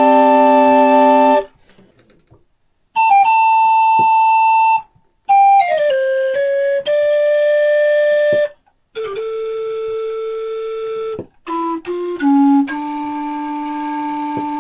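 Gedeckt (stopped) organ pipes of a small test organ sounding held notes and chords, several pipes at once, in four or five phrases separated by short silences, with small clicks as notes change. The pipes are unevenly voiced, still a work in progress.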